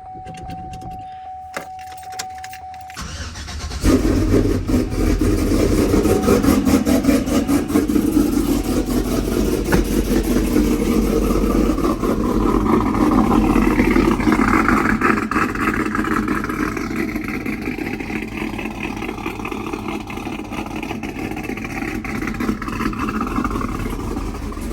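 A steady electronic chime tone for about three seconds, then a cammed GMC Sierra pickup's engine starts suddenly about four seconds in and keeps running with a rapid, uneven pulse at idle.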